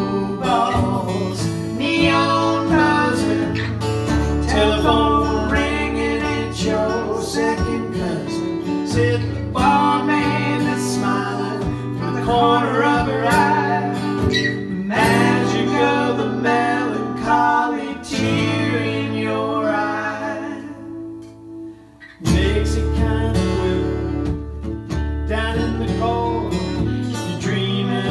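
A slow song played live: acoustic guitar strumming with sustained low bass notes underneath and a melody line above. About twenty seconds in the sound sinks away, then comes back in suddenly a couple of seconds later.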